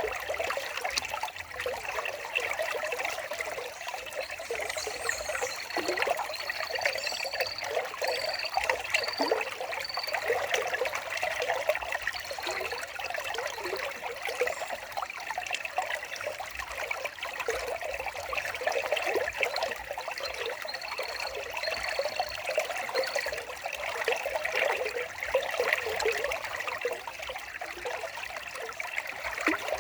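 Water trickling and babbling steadily over stones, as in a small stream. Two runs of short, high repeated notes sound over it, one early in the middle and one later.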